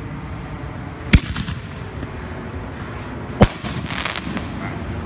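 Consumer canister shell fired from a mortar tube: a sharp thump of the lift charge about a second in, then the shell bursting about two seconds later, followed by a brief crackle.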